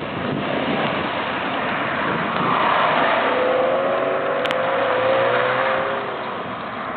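Subaru WRX STI (VAB) turbocharged flat-four engine accelerating hard, its note rising and loudest through the middle before easing off, over a wash of tyre and wind noise. A sharp click about halfway through.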